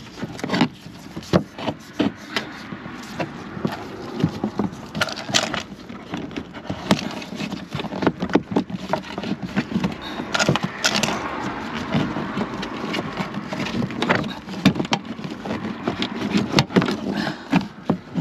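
Handling noise from a trailer wiring harness being pushed and tucked behind a plastic trim panel: irregular clicks, knocks and rustling.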